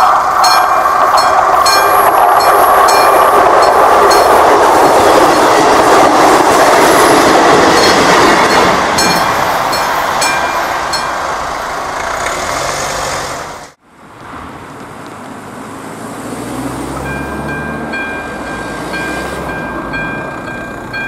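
A train passes over a railway level crossing, loud and clattering, while the crossing's classic mechanical bell strikes about twice a second; the train fades away. After an abrupt cut, a level-crossing electronic bell (ZV-02) sounds with a steady repeating high tone.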